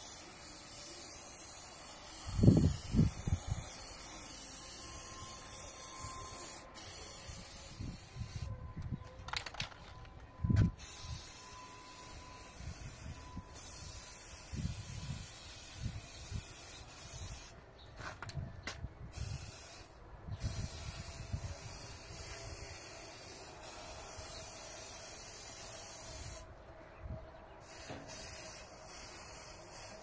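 Aerosol spray-paint can hissing in long spurts that stop and start several times. A few low thumps about two to three seconds in are the loudest sounds.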